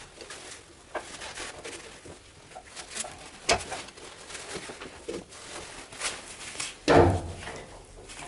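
Scattered light clicks and knocks of a V-belt and a lathe's multi-groove belt pulley being worked by hand, with a sharp click about three and a half seconds in and a louder knock about seven seconds in.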